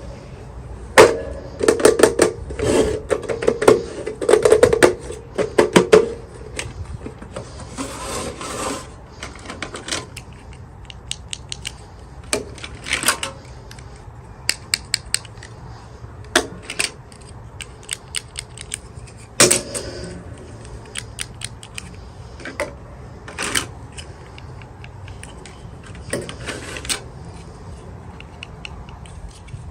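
Hands handling and opening plastic toy packaging: a busy run of clicks and crinkles in the first few seconds, then scattered taps and short rustles.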